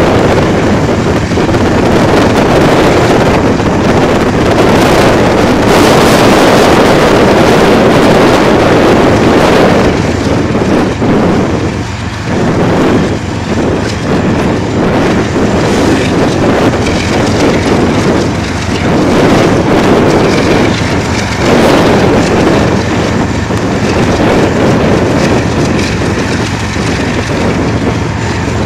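Diesel locomotives of a CN freight train running under power as they pull slowly past, a loud, steady engine rumble mixed with wind buffeting the microphone.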